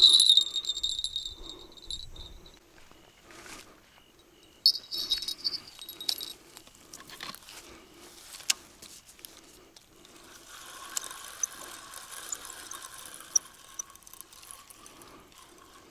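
Scattered clicks and rattles of fishing tackle being handled, with a soft steady hiss in the second half.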